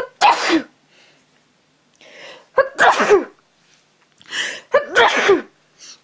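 A person sneezing three times, about two seconds apart, with an audible in-breath before the second and third sneezes: hay-fever sneezes.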